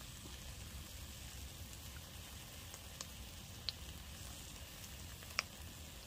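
Cheeseburger patties frying on top of a propane heater: a faint steady sizzle with a few small pops.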